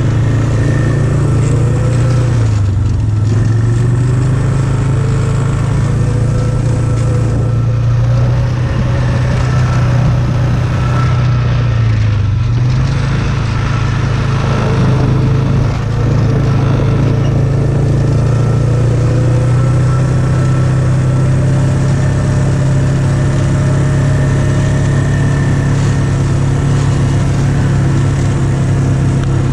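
ATV engine running steadily at low speed close by, its pitch dipping briefly about two and a half and twelve seconds in. A second engine's pitch slowly rises and falls under it.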